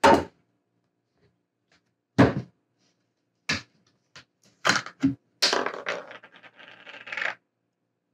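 Several sharp knocks and clicks of kitchen containers being handled and set down on a counter, then about two seconds of scraping and rustling as a plastic maple syrup container is opened.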